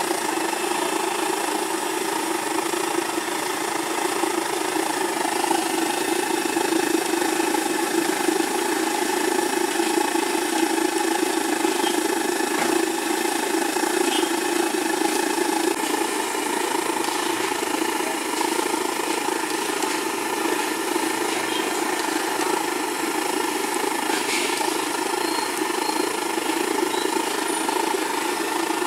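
Banana slices deep-frying in a large iron wok of hot oil: a steady sizzle over a constant low roar from the stove's burner, with a couple of light clinks of the metal ladle.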